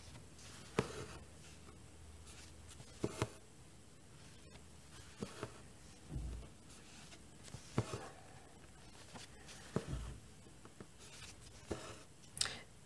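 Faint hand-stitching sounds: a needle pushed through cross-stitch fabric and thread drawn through, giving soft rustles and scattered sharp little clicks every second or two. There are two dull low thumps partway through.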